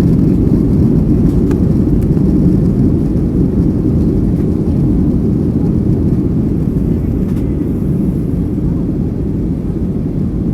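Cabin noise inside a Boeing 737-800 climbing out after takeoff, heard from a rear window seat: a steady, deep rumble of the CFM56 turbofans and rushing air, easing slightly toward the end.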